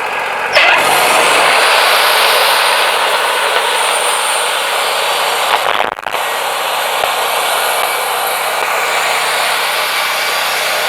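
Wood-Mizer LT40 band sawmill's blade cutting lengthwise through a pine log: a loud, steady sawing noise with the mill running underneath, dipping briefly about six seconds in.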